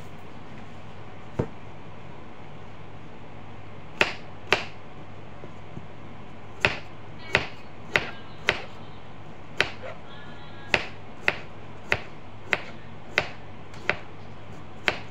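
Kitchen knife slicing a cucumber on a plastic cutting board: about fifteen sharp knocks of the blade striking the board, one early and then a steady run from about four seconds in, roughly one every half second.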